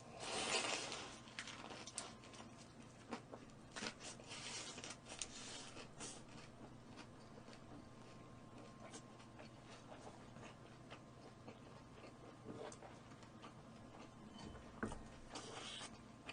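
Someone eating roast chicken at close range: quiet chewing and crunching with scattered clicks and a few short noisy bursts, the loudest about a second in.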